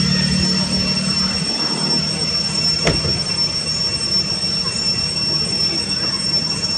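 Steady, high-pitched insect drone over a low background hum, with a single sharp click about three seconds in.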